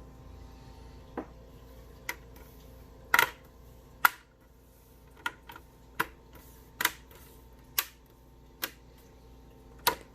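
Plastic clips of an MSI GE72VR laptop's screen bezel snapping into place one after another as the trim ring is pressed on around the lid: about a dozen sharp clicks, roughly one a second.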